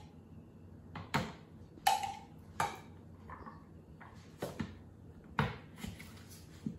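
A metal spoon clinking against an open tin can as condensed milk is scraped out into a blender jar, a handful of sharp clinks about a second apart, one ringing briefly. Near the end the blender lid is knocked into place on the jar.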